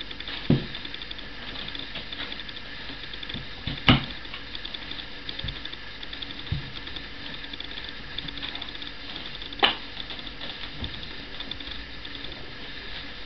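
Dog digging and pawing at a blanket inside a cardboard box to make her bed before lying down, a soft scratching and rustling. Sharp knocks stand out about half a second, four seconds and nine and a half seconds in.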